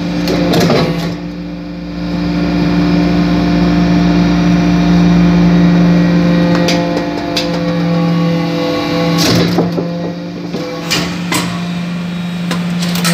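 Hydraulic briquetting press running: a steady hum from its hydraulic power unit as the ram compacts metal chips, with several short metallic clanks and knocks.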